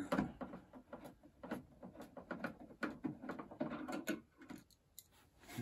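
Short hand screwdriver turning out screws from a treadmill's plastic console cover: irregular small clicks and scrapes of the tool against the screws and plastic, fainter near the end.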